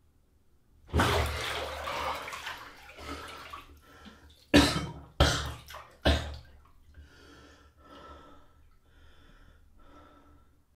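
A man bursts up out of a full bathtub with a loud splash of water that streams off and settles over about two seconds, then takes three sharp gasping breaths and goes on breathing heavily, more quietly, in a steady rhythm.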